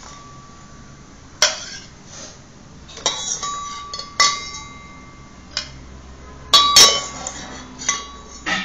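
Stainless steel kitchen vessels clinking and knocking together as a small child handles them: about six sharp metallic strikes at irregular intervals, several leaving a short ring.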